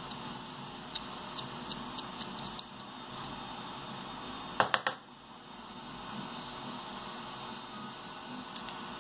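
Light clicks and taps of a steel pin and hex key against 3D-printed plastic parts being fitted together by hand. Three sharper clicks come about halfway through, over a steady hiss.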